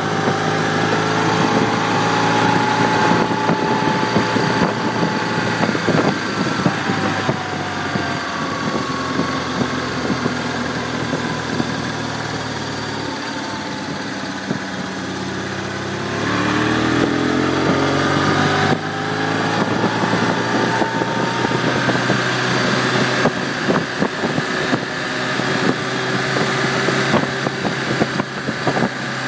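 1996 BMW R1100RT's boxer twin engine running under way, with wind and road noise. The engine drops back around twelve seconds in, then rises in pitch as the bike pulls away again from about sixteen seconds.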